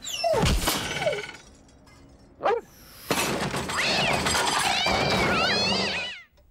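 Cartoon sound effects: a crash with falling yelps in the first second, a short cry about two and a half seconds in, then about three seconds of snarling, yowling scuffle noise with wavering high cries, cut off shortly before the end.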